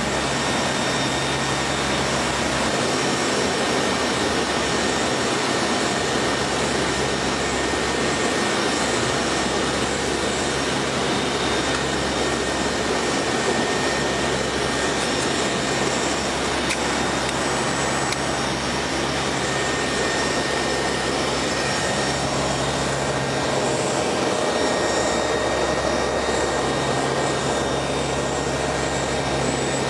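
Steady drone of an aircraft's engines and rushing air heard inside the cockpit, with a constant low hum and faint high-pitched whines running under it.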